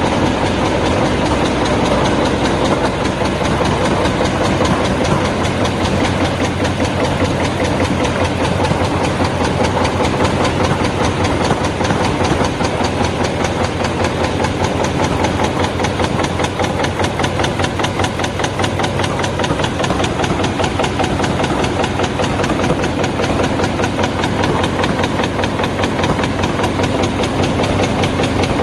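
High-speed paper cup punching machine running steadily, its die punching cup blanks from paper in a rapid, even clatter of strokes.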